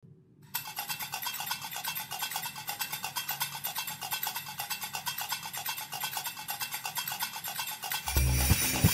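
Recorded dance music starts with a fast, scratchy, shaker-like percussion pattern. About eight seconds in, a heavy bass drum beat comes in and the music gets louder.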